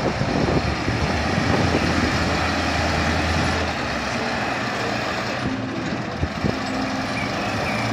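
Tatra eight-wheel dump truck's diesel engine running under load as the truck crawls across a steep slope. A low engine drone is steady for the first half, then sinks back into a broad rushing noise.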